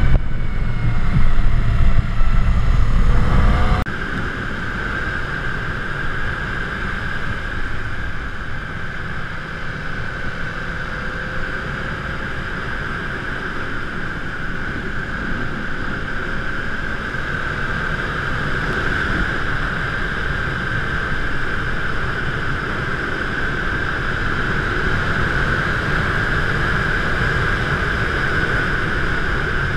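Riding noise picked up by a bike-mounted GoPro. Heavy wind buffeting on the microphone cuts down suddenly about four seconds in to a steadier rush of wind and motion, with a constant high-pitched whine over it.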